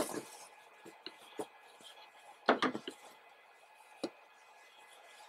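Hands handling and folding a cloth bandana on a woven table mat: a swish of fabric at the start, then scattered light clicks and knocks against the table, the loudest a quick cluster about two and a half seconds in.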